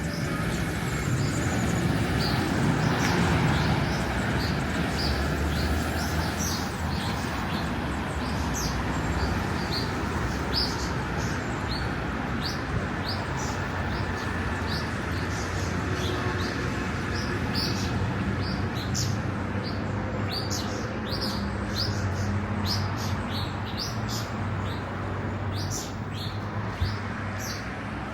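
Small birds chirping, with many short high chirps coming thicker in the second half, over a steady low hum and background noise.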